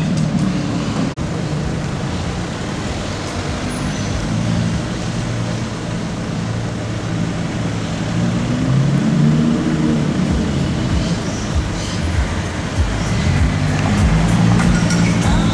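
Supercars driving slowly past in street traffic, a Rolls-Royce Dawn convertible followed by a Lamborghini Huracán Performante, with a low steady engine drone. The sound drops out briefly about a second in, and the drone grows louder near the end as the cars come past close.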